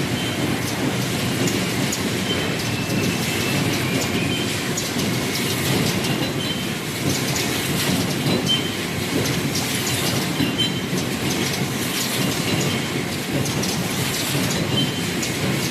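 Many paper plate forming machines running at once: a steady, dense mechanical clatter with frequent sharp clicks and short high squeaks.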